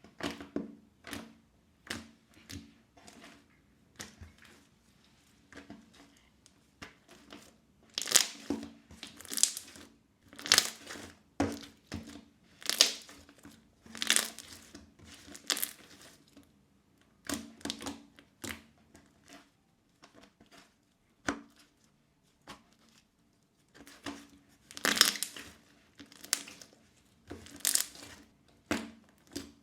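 Crunchy slime being squeezed and pressed by hand: repeated crackling, crunching squishes, each lasting about half a second, in irregular bursts that grow louder partway through.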